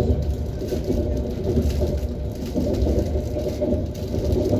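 ES1P Lastochka electric train running, a steady rumble of its wheels on the rails with irregular knocks.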